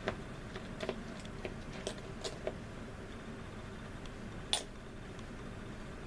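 A few light clicks and taps of small plastic kit parts and tools being handled on a workbench, with one sharper click about four and a half seconds in, over a steady faint hiss.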